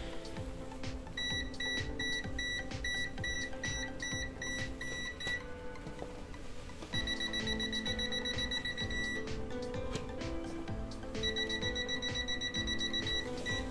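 Kaiweets HT118E multimeter's non-contact voltage beeper sensing a live mains socket: a high-pitched beep repeating about three times a second, then held as a steady tone for about two seconds, twice. Background music plays underneath.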